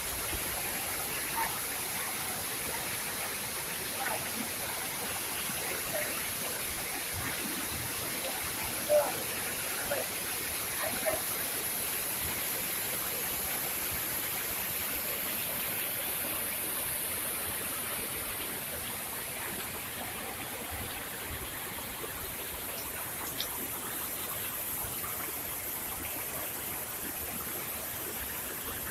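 Steady rush of a small waterfall and the shallow stream running over rocks below it, a little softer in the second half.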